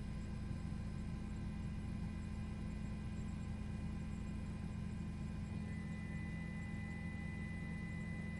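A steady low hum that does not change, with a few faint, thin steady tones above it.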